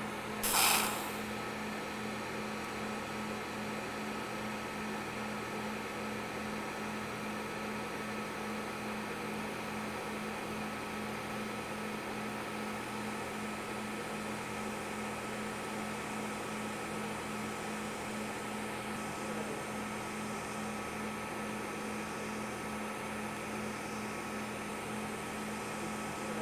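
TIG welding arc on thin stainless steel with a fume extractor running: a brief hiss about half a second in, then a steady, even hum and hiss.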